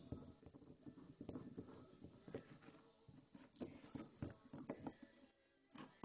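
Faint, irregular tapping and scuffling from a Bernese Mountain Dog puppy moving about and playing, with a quick run of taps in the second half.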